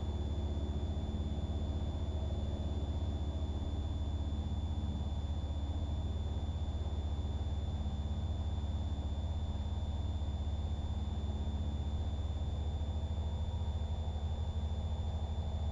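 The twin four-cylinder Lycoming engines of a Piper Seminole drone steadily at reduced power, with a thin, steady high whine over them.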